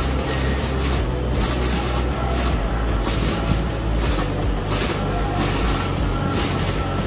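Red photo-flash ground firework hissing in repeated spurts, over background music with a steady bass.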